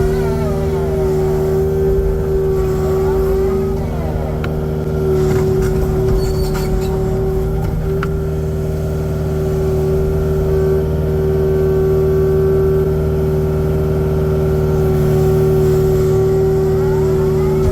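Kubota excavator's diesel engine running steadily, with short rising and falling whines near the start and near the end, and a few sharp clicks about four to seven seconds in.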